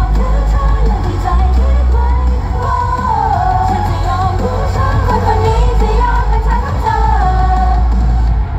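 Idol-pop song played loud through a stage sound system, with a heavy bass beat and female group vocals sung into microphones.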